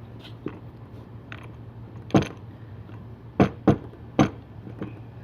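Sharp metallic clicks and knocks from a cast-metal drill press XY table being handled, about seven in a few seconds, the loudest a cluster in the middle.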